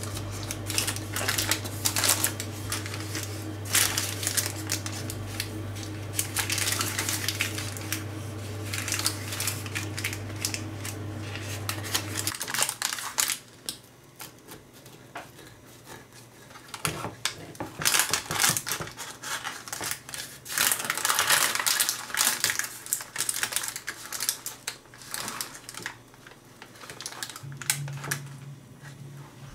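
A knife crunching and crackling through the crisp baked crust and crumble topping of an apple pie, in several bursts in the second half. Before that, a steady low hum with scattered clicks and scrapes, which stops about twelve seconds in.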